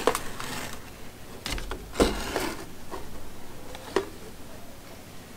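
Blister-packed flashlights being handled and stood up on a tabletop. A few light taps and knocks of card and plastic, the sharpest about two seconds in and a last one near four seconds.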